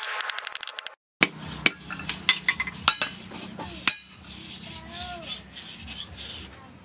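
Rasping on wood for about a second, then, after a brief break, a string of irregular sharp knocks as a small forged axe head is knocked down onto its wooden handle against an anvil.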